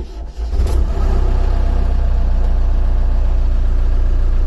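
JCB 3DX backhoe loader's diesel engine starting and settling within about a second into a steady idle. It starts with a new reverse-forward column switch fitted, which shows the worn old switch was the cause of the no-start.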